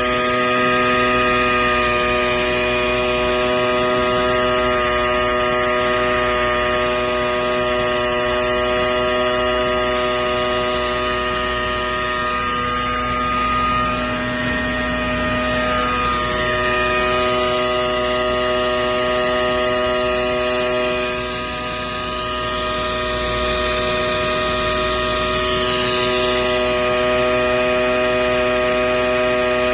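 Steady machinery hum made of many fixed tones, with a higher hiss that swells and glides in pitch twice.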